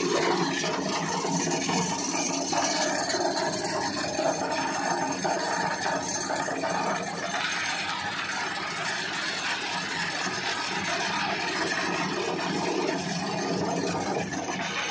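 Electric-motor-driven grinder running steadily, grinding dry fermented goat manure into fertiliser.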